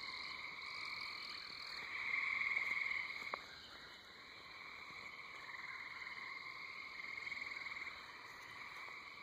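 A chorus of frogs calling steadily from the pond, many voices overlapping into a continuous trilling din. It swells louder about two seconds in and eases off again a second later.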